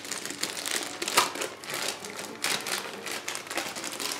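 Clear plastic bag crinkling as hands unwrap a coiled cable from it: irregular rustling with a few sharper crackles.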